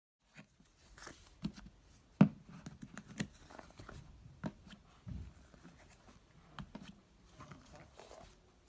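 Hands stretching and pulling a lump of textured blue slime, giving irregular sticky clicks, pops and crackles, with the sharpest pop about two seconds in.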